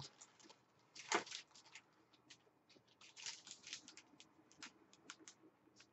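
Faint rustling and crinkling of a sheet of model-car decals being handled, with a louder crinkle about a second in.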